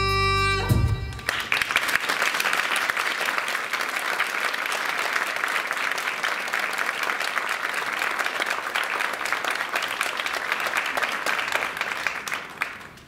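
A held final chord of music cuts off under a second in, and the audience breaks into dense, steady applause that fades away near the end.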